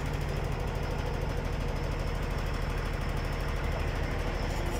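An engine idling steadily, a fast even rumble with no change in speed.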